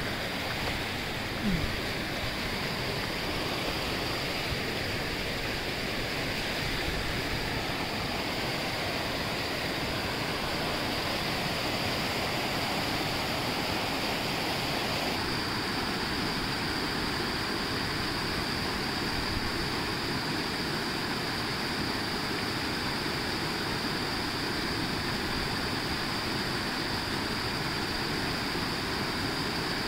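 Mountain creek cascading over boulders: a steady rush of falling water.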